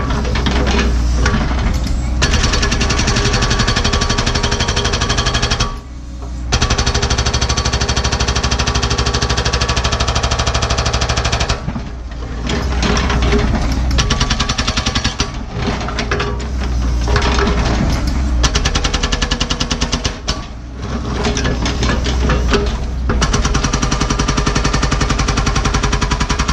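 NPK hydraulic rock hammer on a Cat 314E excavator pounding hard blue rock bedrock with rapid, continuous blows over the excavator's running diesel engine. The hammering comes in long runs with brief pauses about six, twelve and twenty seconds in.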